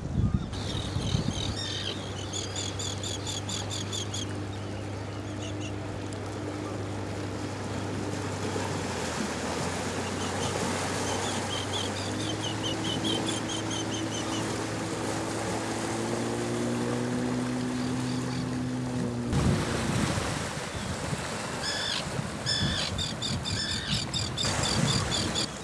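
Terns calling in groups of quick repeated high notes over the wash of the sea. A low steady engine drone, likely a boat's, runs underneath through the first two-thirds and cuts off abruptly.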